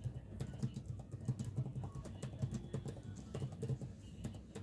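Typing on a computer keyboard: a quick, irregular run of key clicks with dull thuds.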